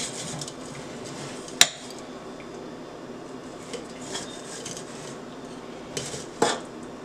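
A metal fork clinking against the metal basket of a Ninja air fryer while chicken pieces are turned, with a sharp clink about one and a half seconds in, another near the end, and a few lighter taps between.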